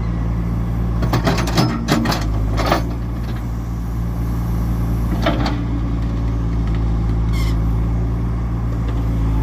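Diesel engine of heavy construction machinery running steadily, with a few short metallic clanks and squeaks from the equipment.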